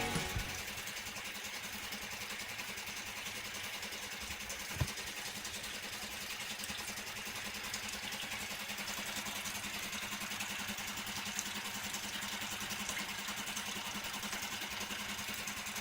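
Suzuki DF6A 6 hp four-stroke outboard motor running steadily during a test run, with one sharp click about five seconds in.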